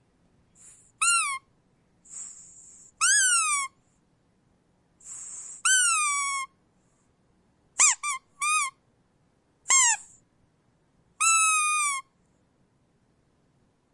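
Rubber squeak toy squeezed again and again, giving about seven squeals. Most squeals droop downward in pitch, for a sad sound. A short airy hiss comes just before several of them, and two quick short squeaks fall near the middle.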